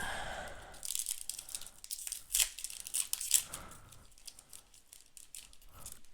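Crinkling and tearing of a trading card booster pack's foil wrapper being opened, with a dense run of sharp crackles from about one to four seconds in that then tapers off.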